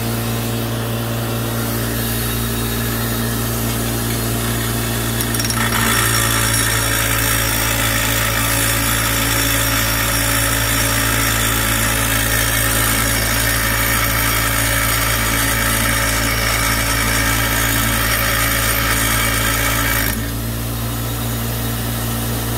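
Electric grinding wheel running steadily with a low motor hum. From about six seconds in to about twenty seconds in, a steel bolt head is held against the side of the wheel, adding a loud grinding hiss as it is ground flat. Then the wheel spins on unloaded.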